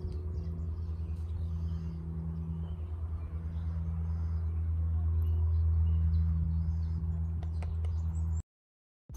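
Birds chirping over a steady low hum, with a few sharp clicks near the end. The sound cuts off abruptly shortly before the end.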